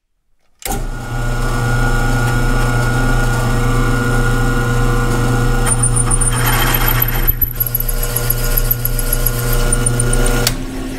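Drill press running and drilling into cast iron, boring out a damaged, weld-hardened bolt hole in a tractor front bolster to take a thread insert. It starts suddenly about a second in, runs steadily with a hum, picks up a thin high squeal from the bit in the second half, and stops just before the end.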